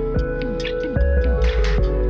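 Background music: ambient electronic track with held synth tones over a steady low bass and a regular beat.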